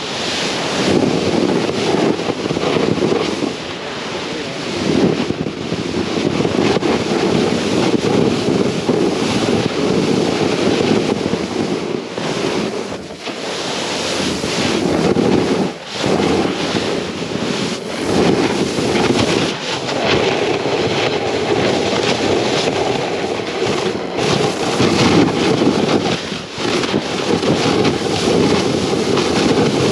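Snowboard sliding and carving through loose snow, a continuous rushing hiss and scrape of the board through the snow, mixed with wind on the board-mounted microphone. The noise drops briefly several times.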